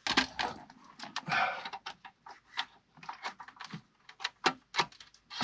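Irregular clicks, taps and rustles of hands moving about and handling parts and wiring in a car interior, with a couple of short hissy rustles in the first two seconds.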